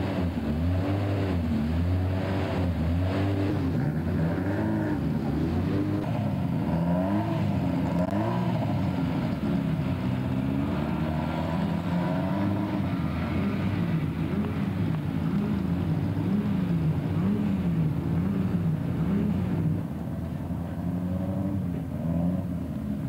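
Historic racing car engine being revved in short blips, its pitch rising and falling over and over, roughly once a second.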